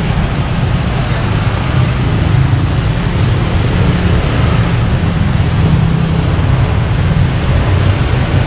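Steady loud low rumble of motor vehicles running, with a broad hiss above it and no distinct events.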